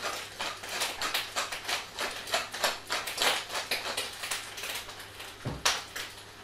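Pepper mill grinding peppercorns, a quick run of dry crackling clicks from the turning grinder, then a single louder knock about five seconds in.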